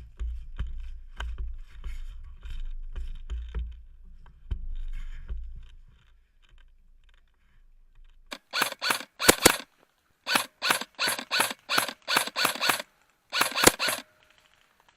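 Airsoft electric rifle firing a string of about nine short full-auto bursts in the second half, each a rapid rattle of shots. Before that, a low rumble with scattered clicks and knocks.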